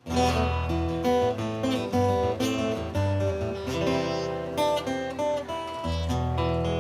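Acoustic guitar music, plucked notes and strummed chords over a steady bass line.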